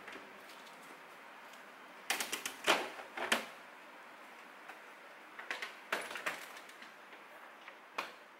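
Plastic food containers and packages knocking and clattering as they are moved about on refrigerator shelves, in two short bouts of clicks and knocks. Near the end comes a single sharp click as the refrigerator door shuts.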